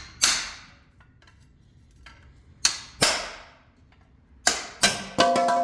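Six sharp metal-on-metal hammer blows, roughly in pairs, driving a tool in to break the silicone sealant holding an engine oil pan in place. The last blow leaves a ringing metallic tone.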